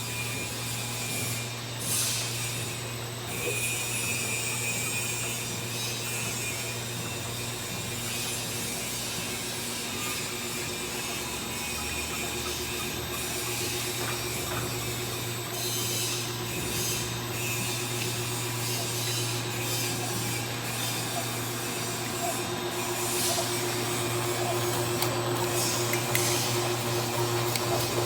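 Automatic liquid-filling and packing line machinery running with a constant low hum and mechanical noise, broken by a few short hisses. A steady whine comes in about halfway through and grows louder toward the end.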